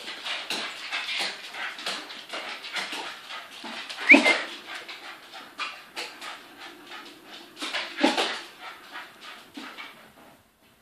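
A small terrier whimpering and yipping excitedly as it leaps after light reflections, with a sharper yelp about four seconds in and again about eight seconds in, and its claws clicking and scrabbling on a wooden floor.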